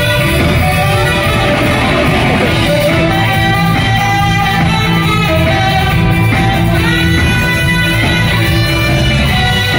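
Live band playing loudly in a concert hall: guitars, drums and keyboards in a steady upbeat groove.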